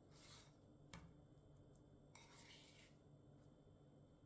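Near silence with faint handling noises: a soft rub, a light click about a second in, and a short scrape about halfway through.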